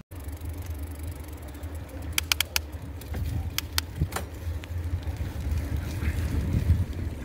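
Low rumble of wind buffeting a phone's microphone, with a quick cluster of sharp clicks about two seconds in and a few more around three to four seconds in.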